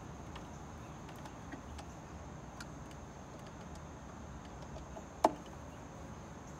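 Faint scattered clicks of a screwdriver driving screws back into a Dolphin robotic pool cleaner's plastic housing, with one sharp click about five seconds in.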